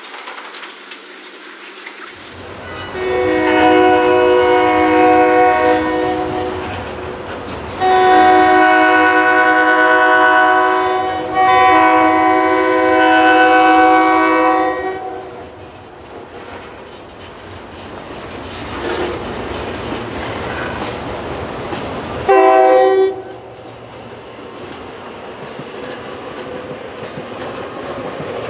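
Horn of an approaching SEPTA electric commuter train blowing three long blasts and then one short blast, over the steady rolling and clatter of a passing freight train's cars.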